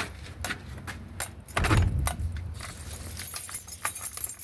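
Light metallic clinking and jingling throughout, like keys jangling. About a second and a half in, a louder low rumble lasts just under a second.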